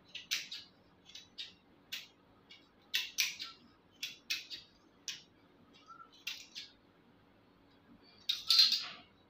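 Large fabric scissors snipping through doubled net fabric in short, sharp cuts, about two or three a second, which stop about seven seconds in. Near the end comes a louder rustle of the net as the cut piece is lifted.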